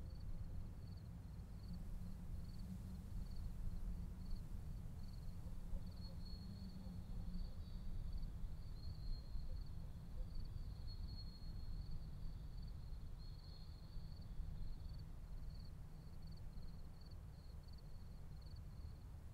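Faint outdoor night ambience: insects chirping in a steady, rapidly pulsing high trill over a low rumble.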